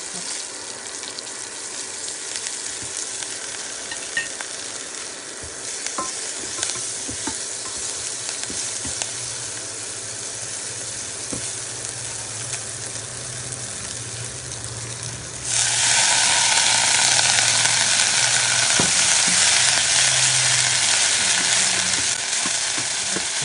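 Curry leaves sizzling in hot oil in a saucepan. About two-thirds of the way through, the sizzling suddenly gets much louder and brighter, as when a batch of sliced vegetables goes into the hot oil, and it stays loud.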